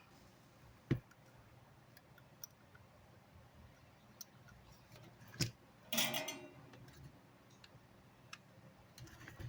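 Handling of small electronic parts and tools on a repair bench: two sharp clicks, about a second and five and a half seconds in, then a short clatter just after six seconds, with faint ticks between.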